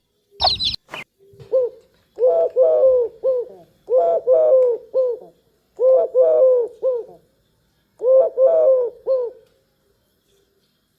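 Dove cooing: four phrases of three or four quick, soft coos each, repeating about every two seconds.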